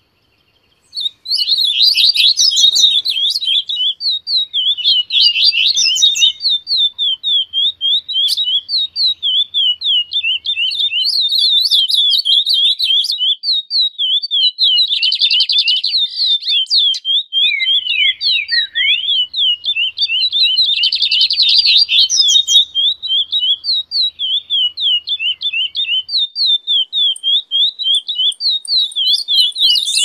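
Dense, continuous songbird chirping from a mixed bird-song recording, with short high notes repeating several times a second. It starts about a second in, after a moment of silence.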